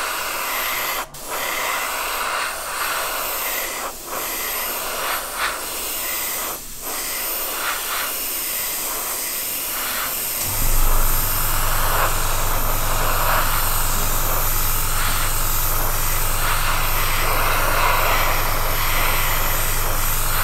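Airbrush spraying with a steady hiss of air, broken by a few brief pauses as the trigger is let off. About ten seconds in, the air compressor feeding it starts and runs on with a steady low hum under the hiss.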